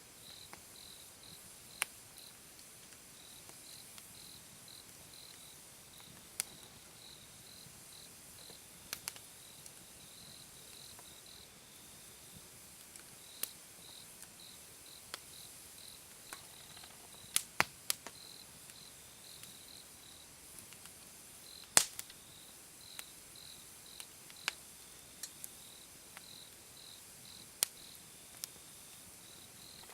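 Wood fire crackling, with scattered sharp pops, the loudest about two-thirds of the way through. Behind it a cricket chirps steadily, short high chirps about twice a second.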